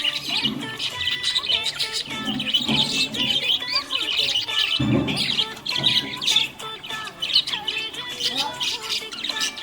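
Small pet parrots chirping and twittering in quick, overlapping chirps, with background music underneath.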